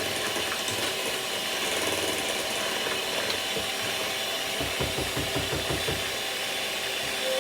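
Electric mixer running steadily, beating cake batter in a mixing bowl.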